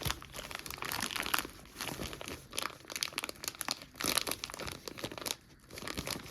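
Toy packaging crinkling and rustling as it is handled and opened, in irregular crackles with a short lull near the end.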